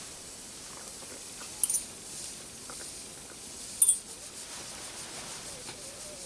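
Steam hissing steadily from the jets of a small brass Heron's engine (aeolipile), with two sharp metallic clinks, about two seconds apart, as a pin touches the brass steam ball while the engine has trouble starting.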